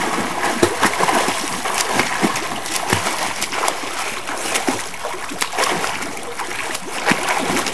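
Two swimmers kicking and stroking through pool water: continuous splashing, with many small sharp splashes over a steady wash of churning water.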